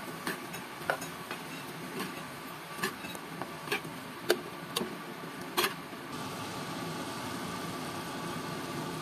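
Metal spoon clinking and scraping against a nonstick frying pan while stirring chicken pieces, over a steady sizzle from the pan. The clinks stop about six seconds in, leaving only the sizzle.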